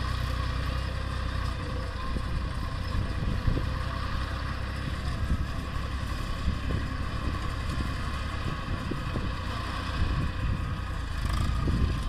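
Eicher 480 tractor's three-cylinder Simpson diesel engine running steadily, driving a round straw baler through its PTO, with a continuous low rumble and a steady hum from the machinery.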